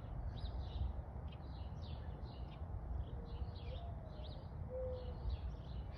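Small birds chirping repeatedly in the background, over a steady low rumble.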